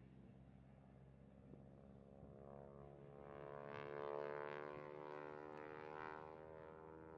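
Radial engine and propeller of a Boeing-Stearman Model 75 biplane droning through an aerobatic pass. The sound grows louder to a peak about four seconds in, then eases off.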